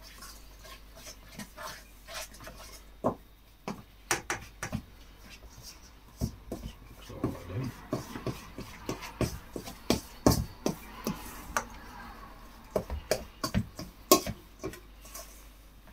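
Metal cutlery clinking and scraping against a stainless steel mixing bowl in irregular taps, stirring melted butter into flour for shortcrust pastry.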